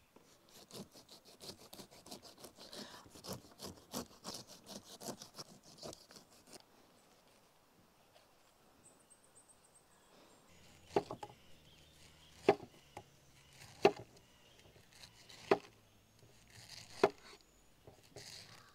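A knife peeling a cantaloupe: quick scraping strokes of the blade along the rind for the first six seconds, then, after a quieter pause, about five sharp chops of the knife through the melon onto a cutting board, roughly one every second and a half.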